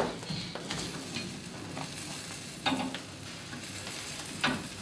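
Steady sizzle of a whole lamb grilling over wood embers, with a couple of short scrapes of a metal tool against the grill and embers.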